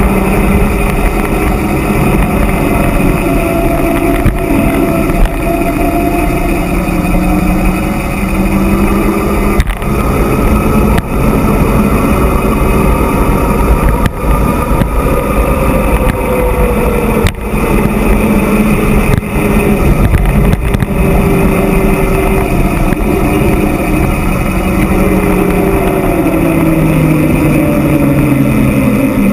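Wind rushing over the camera microphone and the rolling noise of a Cube electric mountain bike descending a paved mountain road at speed. A hum slowly rises and falls in pitch, and there are a few brief knocks.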